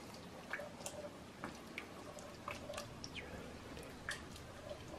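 Faint wet squishing of a creamy tomato sauce being stirred in a saucepan, with light, irregular clicks of the spoon against the pan.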